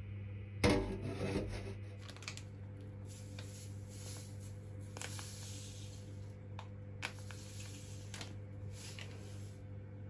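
A stainless-steel Turkish coffee pot knocks against a steel sink about half a second in, with a short metallic ring. Soft scraping and rubbing follows, with a few light clicks, over a steady low hum.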